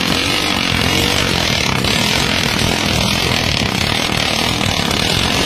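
Engine of a homemade flood-crossing motorcycle running steadily at speed, with a steady rushing noise over it.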